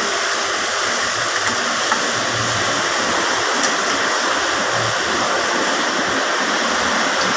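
Steady, even rushing hiss with a few faint clicks.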